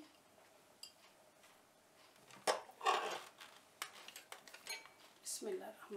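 Light kitchen handling clatter: a sharp click about two and a half seconds in, a short scraping rustle right after, then a few soft clicks as containers and utensils are moved around over a glass mixing bowl.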